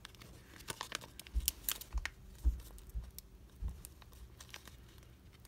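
Fingernails picking and scratching at a small square of cling-mount adhesive sheet, trying to lift its paper backing: scattered light crinkles and clicks, with a few soft bumps in the middle.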